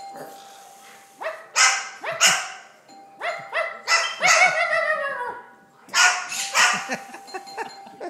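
Moluccan cockatoo barking like a dog, mimicry it gives in answer to the doorbell: a run of about six loud, harsh barks, the last one drawn out and falling in pitch, then after a short pause two more.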